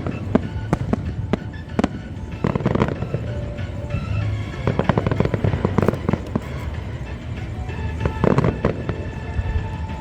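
Aerial fireworks bursting overhead in repeated clusters of bangs and crackles, with music playing underneath.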